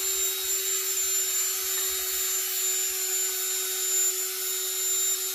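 Cordless drill running at a steady speed, spinning a cleaning rod inside a 20-gauge shotgun barrel to polish the bore with bore paste. A steady whine that holds one pitch.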